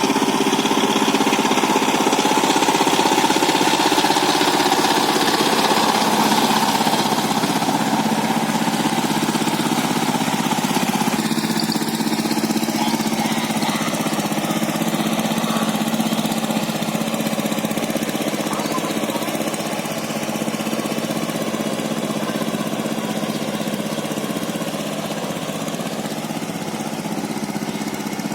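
Power tiller's single-cylinder diesel engine running steadily as it plows, growing gradually fainter.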